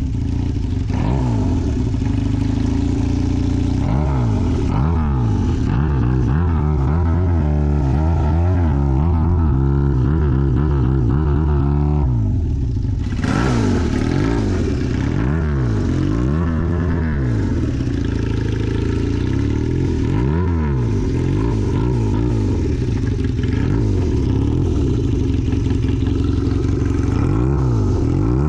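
Honda CB400 motorcycle engine revved in quick repeated throttle blips, its pitch rising and falling again and again: the rhythmic Zokusha-style "call". There is a brief burst of noise about thirteen seconds in.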